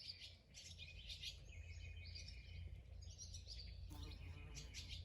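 Several wild songbirds chirping and singing faintly, in quick overlapping phrases, over a low steady rumble.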